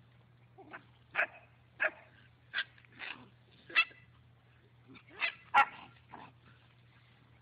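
German shepherd puppy giving a string of about nine short, sharp play barks and yips, in two bunches with a short pause in the middle.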